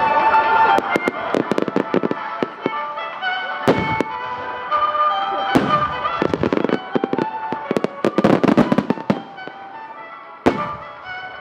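Aerial fireworks bursting, with sharp booms about four seconds in, about six seconds in and near the end, and a dense run of crackling between about six and nine seconds. Background music plays throughout.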